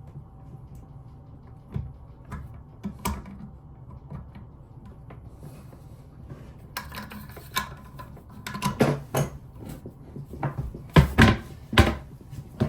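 Clicks, knocks and rattles of plumbing parts being handled during the fitting of a bidet attachment's water-supply hoses and connectors, sparse at first and then busier, with several sharp knocks near the end.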